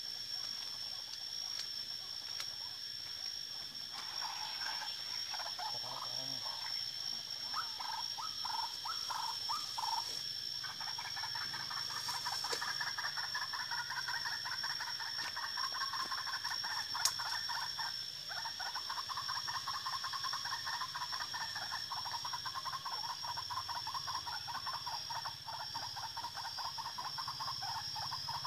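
White-breasted waterhen calling: a fast, continuous croaking chatter that starts in fits about four seconds in and runs unbroken from about ten seconds. A steady high-pitched whine runs under it.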